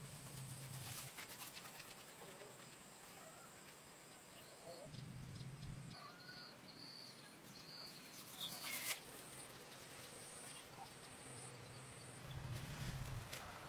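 Faint countryside ambience: a steady high insect buzz that breaks into short repeated chirps about halfway through, with birds calling and a brief falling chirp about two-thirds of the way in.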